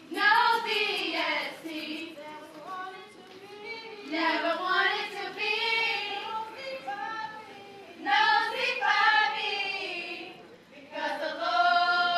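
A group of women singing together without instruments, in phrases a few seconds apart, ending on a long held high note.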